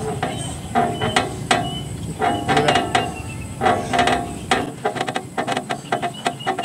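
Metal pull-up bar creaking and clicking under a man doing pull-ups, a squeaky creak with clicks on each rep about every second and a half. A faster run of clicks follows near the end.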